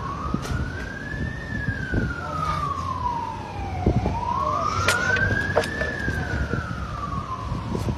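A siren wailing slowly up and down, rising and falling twice.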